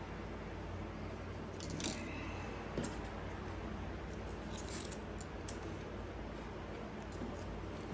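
Light handling of plant packaging: a few scattered small clicks and crackles of paper or plastic wrapping over a steady low hum.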